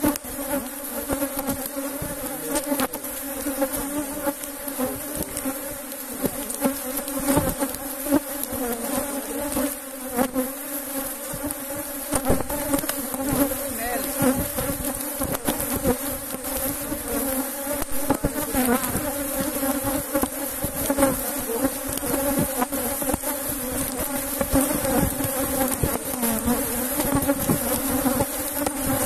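Many honeybees buzzing around an opened hive during inspection: a steady, dense hum with a few light knocks from the hive frames being handled.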